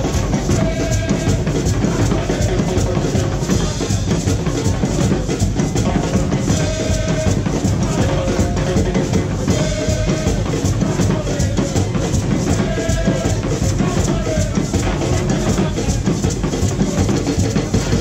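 Carnival band music: heavy, driving drums and percussion with a short melodic phrase that comes back every few seconds.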